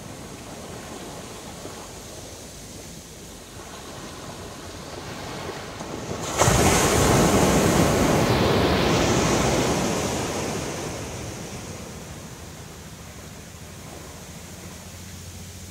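Ocean surf on a sandy beach: a low, steady wash of waves, then the loud rush of a breaking wave that sets in suddenly about six seconds in and fades away over the following few seconds.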